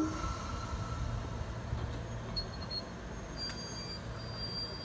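Fukui Railway 200 series electric railcar running with a steady low hum as it moves slowly along the track. A thin, high, steady tone joins about three and a half seconds in.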